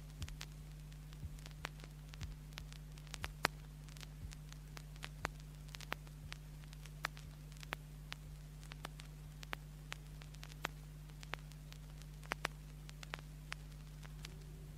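Vinyl LP surface noise after the music has ended: scattered clicks and crackle from the record's grooves over a steady low hum.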